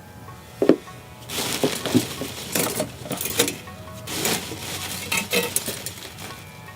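Handling noise from a microphone being fitted into a shock mount: an irregular string of clicks, knocks, scrapes and light clinks, starting about half a second in and dying away near the end.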